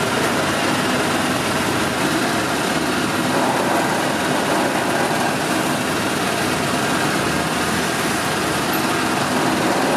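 A small engine running steadily, with a dense, even noise and no change in pace.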